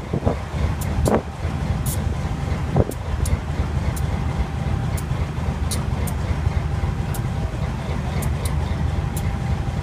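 GE U23B locomotive's V12 diesel engine running steadily, still smoking from its stack as it warms up after a cold start, with a deep even rumble and a steady whine. Short sharp ticks sound once or twice a second over it.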